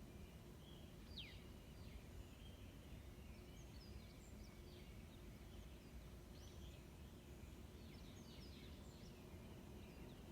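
Faint bird calls: scattered short high chirps, one falling whistle about a second in and a quick run of chirps in the second half, over a quiet steady low background rumble.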